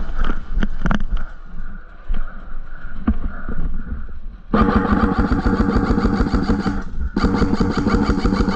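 Airsoft electric gun (AEG) firing on full auto: two long bursts of rapid shots with the motor and gearbox buzz, the first starting about halfway through and the second right after a short pause. A few single sharp knocks come before the bursts.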